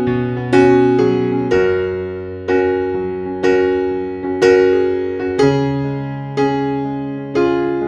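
Background music: electric piano playing slow chords, about one a second, each ringing out and fading before the next.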